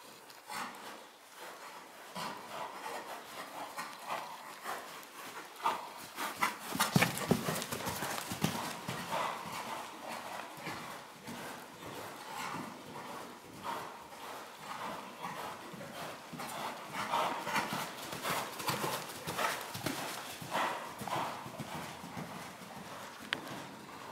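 A ridden horse's hooves beating rhythmically on the sand footing of an indoor riding arena, loudest about seven seconds in.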